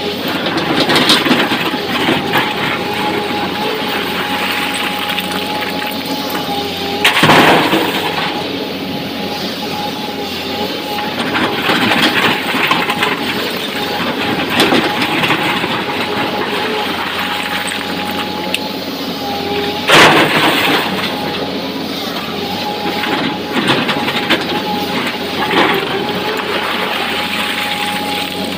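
Excavator engine running steadily with a steady whine while its steel bucket digs and scrapes through a pile of broken quarry rock. Rocks crunch and clatter against the bucket, with the loudest crashes about a quarter of the way in and again about two-thirds through.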